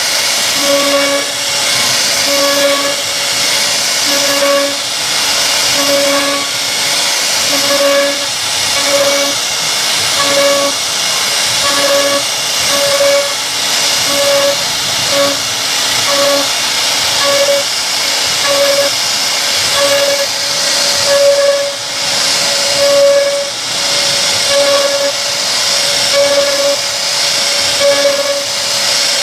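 CNC wood router cutting solid wood: the spindle's high-pitched whine over a steady hiss of cutting. The whine swells and fades about once a second as the bit works along the carving.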